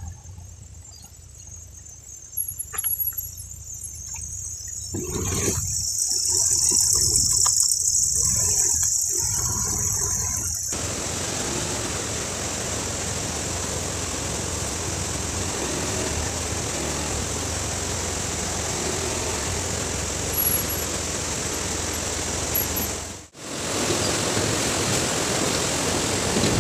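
A motorbike riding a rough track, with a low engine hum under the ride. A high, steady shrill sound comes in for about five seconds, and from about eleven seconds in a loud, even rush of wind and road noise takes over.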